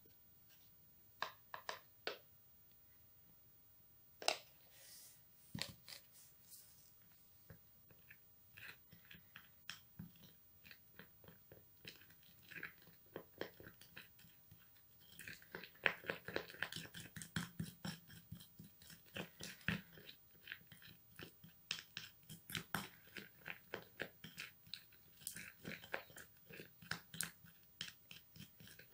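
A plastic spoon stirring a thick henna paste in a small glass bowl: quick wet scrapes and clicks that turn fast and steady about halfway in. Before that, a few scattered taps and scrapes.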